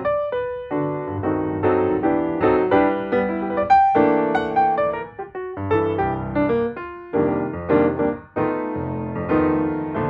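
Background piano music: a continuous flow of struck notes and chords, each ringing and dying away.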